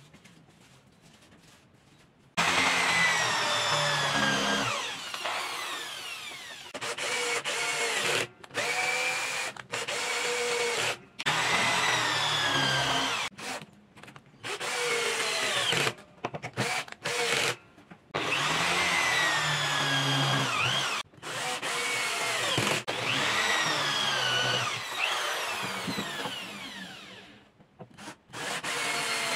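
Corded electric drill driving screws into wood. Its motor whine starts and stops in many short runs with brief pauses between, the pitch rising and falling within each run. It begins a couple of seconds in and dies away near the end.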